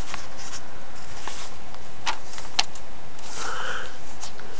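Paper pages of a handmade junk journal being turned by hand: a few light clicks and a short rustle of paper.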